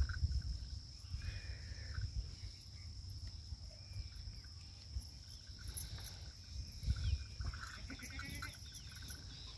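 Steady high-pitched drone of insects over a low rumble, with a faint jingle of small ghungru bells about eight seconds in as they are tied around a buffalo calf's neck.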